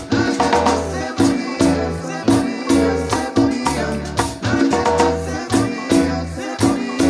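Live marimba orchestra playing an upbeat Latin dance tune: a steady pulsing bass beat with shaker percussion, saxophones and a group of singers.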